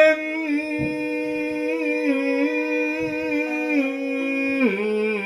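A voice chanting a kayōgin (shigin-style sung poem). It holds one long note with small ornamental wavers, then steps down to a lower pitch near the end.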